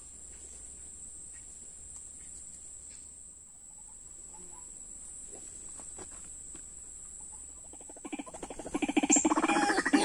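Quiet background at first, then white-breasted waterhen calls start about eight seconds in: a fast run of pulsing notes that turns loud a second later.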